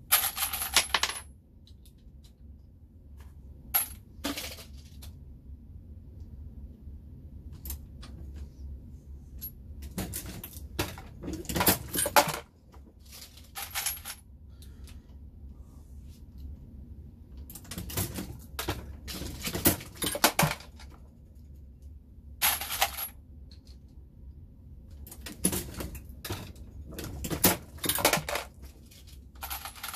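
Empty brass cartridge cases clinking and jingling as a hand rummages through and scoops them from a tray. The clinking comes in short spells several times, with pauses between.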